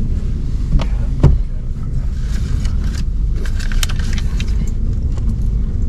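Steady low rumble of a car heard from inside the cabin, with a few sharp clicks and knocks, the loudest just over a second in.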